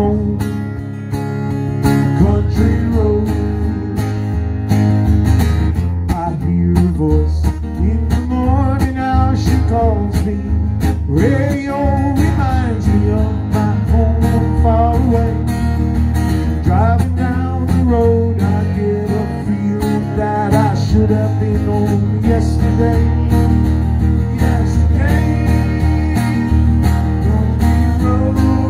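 Steel-string acoustic guitar strummed steadily in a live solo performance, with a man's singing voice coming and going over it.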